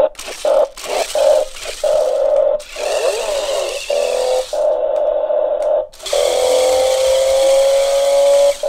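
Toy stunt RC car's small electric drive motors and gearboxes whining in short stop-start bursts as it is driven around, then a longer run near the end with the whine slowly rising in pitch before cutting off.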